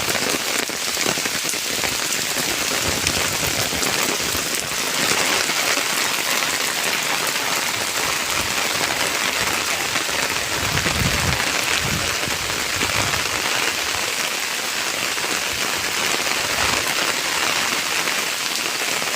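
Steady, even hiss of water, with a few brief low rumbles a little past the middle.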